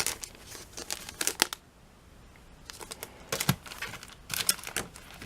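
Stamp packaging crinkling and rustling as it is handled, in two spells of crackling with a short quiet pause between them.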